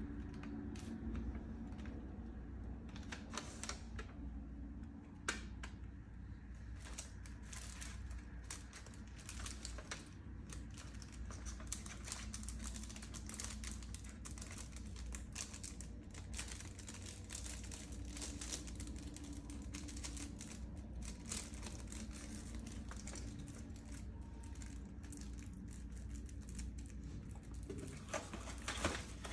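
A plastic CD jewel case and its clear cellophane wrap being handled: a long, irregular run of small clicks and crinkles as the wrap is peeled and the case turned over.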